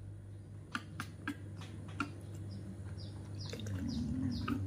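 A baby macaque gives a run of short, high, falling squeaks, several a second, through the second half. Before that come a few light clicks.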